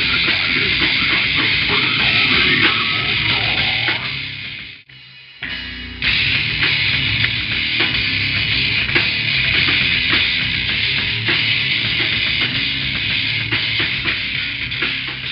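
Live slam death metal band playing: distorted guitars and pounding drums, sounding tinny and cut off at the top as recorded on the camera. About five seconds in the music stops dead for about half a second, then comes back, fully loud again about a second after the stop.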